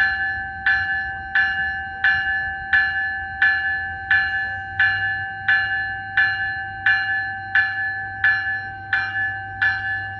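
A Metrolink commuter train's bell ringing steadily, about three strokes every two seconds, as the train departs, over a low steady rumble.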